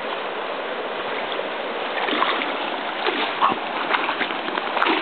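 Water splashing around a swimming dog over a steady rush of moving water, with irregular sharper splashes from about two seconds in.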